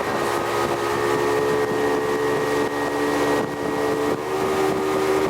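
Motorboat engine running steadily at speed while towing a water-skier, with wind and water rushing past. Its pitch shifts slightly about four seconds in.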